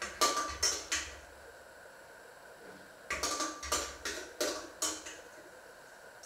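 Dishes and pans knocking and clinking against each other in a kitchen sink. There is a quick cluster of clinks in the first second, then a run of about six more from around three to five seconds in.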